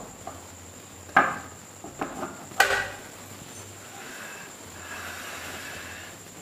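Plastic stand base of an LG monitor-TV knocking down on a wooden tabletop: two sharp knocks about a second and a half apart, with lighter taps between. Then a soft scrape as the set is slid and turned round on the table.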